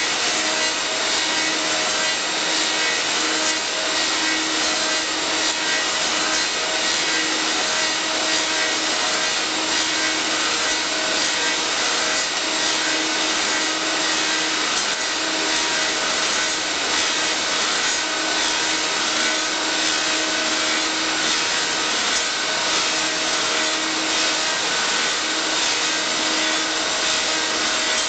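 Elio Valeri 4M/65E wood copy lathe working spinning wooden blanks: a steady hissing scrape of wood being abraded, over a faint machine hum that drops in and out.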